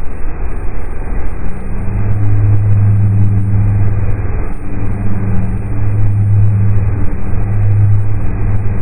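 Synthesized space-ambience drone presented as the sound of the dwarf planet Gonggong: a dense low rumble with hiss above it, and a deep hum that swells in for two or three seconds at a time, then briefly drops out.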